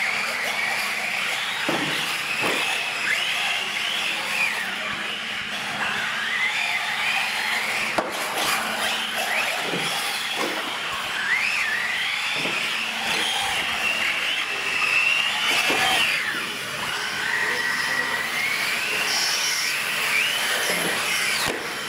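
Radio-controlled UTV trucks racing, their electric motors and drivetrains whining high, rising and falling in pitch again and again as they speed up and slow down around the course, with a few short knocks, such as a truck landing off a jump.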